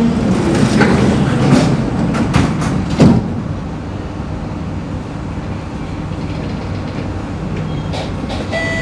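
MRT train's sliding doors closing, shutting with a sharp knock about three seconds in. This is followed by the train's steady low hum.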